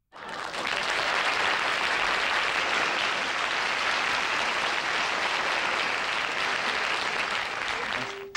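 Studio audience applauding steadily, starting abruptly and thinning out just before the end.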